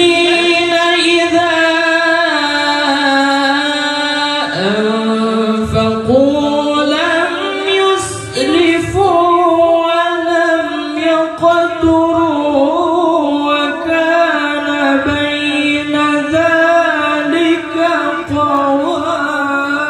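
Young male qari (Qur'an reciter) chanting in Arabic in a high voice into a handheld microphone. He holds long, ornamented notes, dropping lower about four and a half seconds in and climbing back up.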